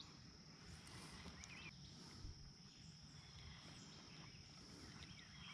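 Near silence: faint outdoor ambience with a steady high-pitched insect drone and a few faint bird chirps, plus a small low bump about two seconds in.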